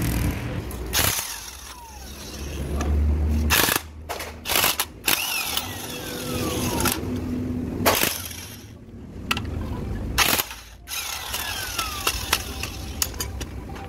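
Irregular metallic clanks and knocks of hand tools and parts on a dismantled truck gearbox, with an engine running in the background.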